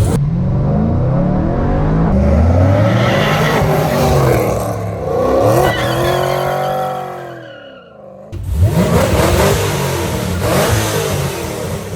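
Supercharged V8 of a 2010 Chevrolet Camaro SS revving, its pitch rising and falling repeatedly. The sound drops away briefly about eight seconds in, then the engine is heard running again.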